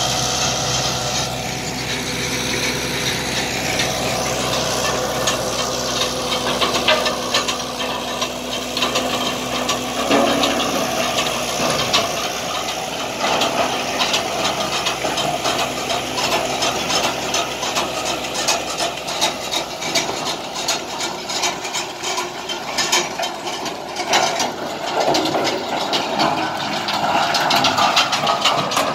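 Diesel engine of a John Deere tractor running steadily as it pulls a shaft-driven Kivi-Pekka stone picker. Under it, a constant clatter of stones and soil rattling through the picker. The engine tone fades behind the clatter after about ten seconds.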